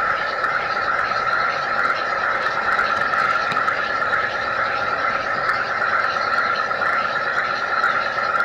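G-scale model train running along the track, a steady whirring of its motor and wheels with faint light clicks.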